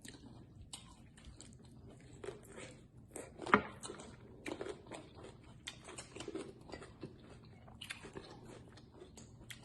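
Close-miked eating of deep-fried frog legs with a Hot Cheeto crust: bites and chewing heard as a string of short, sharp crunches. The loudest bite comes about three and a half seconds in.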